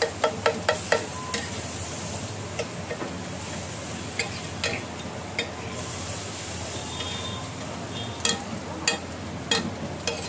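Metal spatula tapping and scraping on a flat iron tawa while mashing and stirring a frankie's masala filling, over a steady sizzle from the hot griddle. A quick run of about five taps at the start, then scattered taps through the rest.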